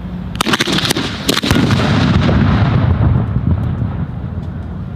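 Fireworks going off: a quick string of sharp cracks about half a second in, then bigger blasts about a second and a half in. A rumble and crackle follow and fade over the next couple of seconds.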